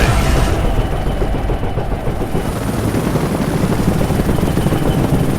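Helicopter rotor chopping steadily with engine whine, loud and close.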